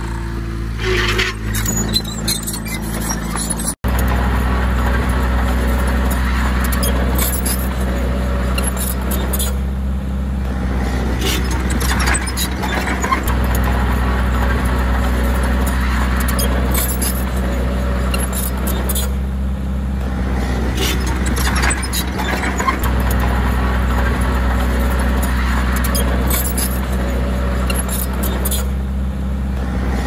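Small crawler bulldozer's diesel engine running steadily under work, with frequent short clanks and clicks over it. A brief dropout comes about four seconds in, after which the engine is louder.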